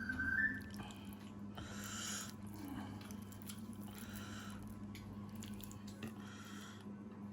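A person chewing food with the mouth close to the microphone: wet squishing and smacking in short bouts about every two seconds. A steady low hum runs underneath.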